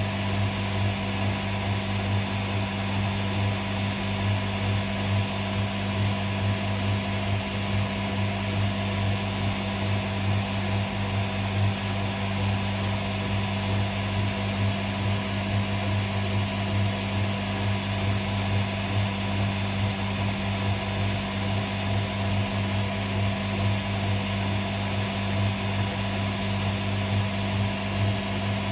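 Hotpoint Aquarius WMA37 washing machine running steadily, its motor and drum giving an even, unbroken hum. The owner suspects the drum bearings are rough.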